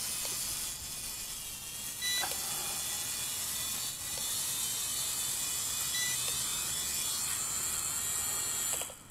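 Small Hubsan H502 quadcopter's motors and propellers buzzing with a steady high hiss as it comes down and lands. The sound cuts off near the end as the motors stop.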